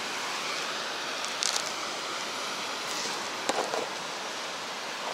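Steady hiss of ocean surf breaking on the beach, with a few light clicks and rustles as an antenna wire and a small matching box are handled on a wooden surface.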